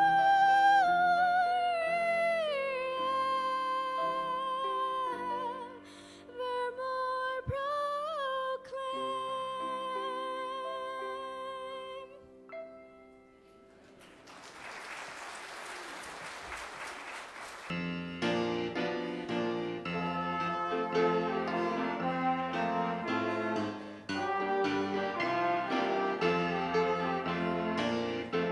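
A girl's solo singing voice holds and slides down through a final phrase over accompaniment, ending about twelve seconds in. Brief applause follows. Then a brass ensemble of trumpet and trombones with piano starts playing.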